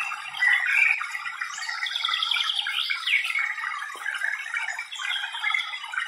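Small birds chirping in a garden, with a rapid trill about two seconds in and a quick falling whistle just after, over a continuous trickle of splashing water.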